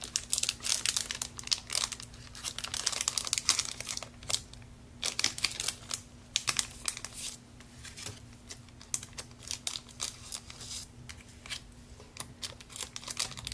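Foil wrapper of a trading-card booster pack crinkling and crackling in irregular bursts as it is handled and worked open, with a short lull about four seconds in.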